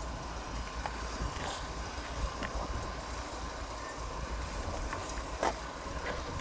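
Truck crane's diesel engine running steadily, with a low rumble and a faint steady whine, while it holds a metro car on its hook. A sharp click or clank about five and a half seconds in.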